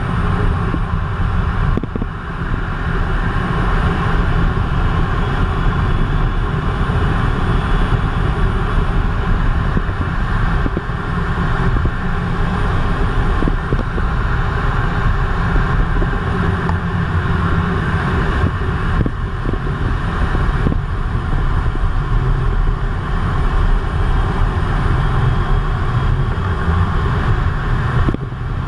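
Cockpit noise of an RAF Eurofighter Typhoon in low-level flight: the jet's engines and the airflow around the canopy make a loud, steady rushing sound, heaviest in the low end.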